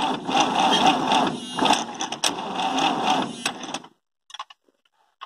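Starter motor cranking the Massey Ferguson 85X's MWM diesel engine, which turns over without catching; the cranking cuts off suddenly about four seconds in, followed by a few light clicks.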